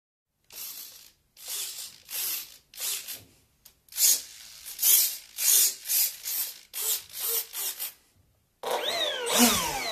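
Electric ducted fan of an RC model jet: about a dozen short throttle blips of rushing, whirring fan noise, growing louder. Near the end a steadier whine sets in, with several pitches falling.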